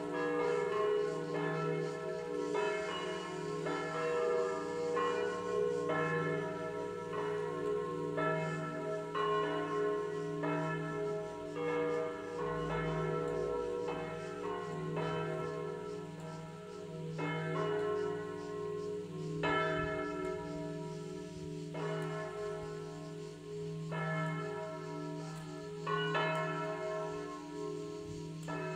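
A set of three church bells tuned in E (mi 3) ringing a festive peal. Their strokes follow one another about once a second or faster, each hum ringing on under the next.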